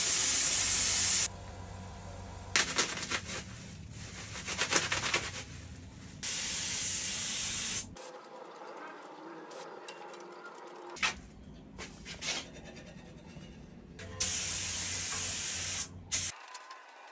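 Gravity-feed compressed-air paint spray gun hissing in three bursts of one to two seconds as paint is sprayed, with quieter crackly rustling between the bursts.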